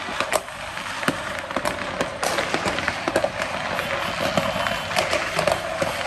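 Many fireworks and firecrackers going off at once: a dense, irregular crackle of sharp bangs over a continuous hiss.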